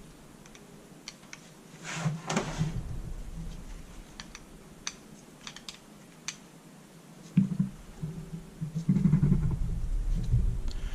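Light clicks and taps of small metal carburetor parts and hand tools being handled on a workbench, with louder handling noise about two seconds in and again near the end.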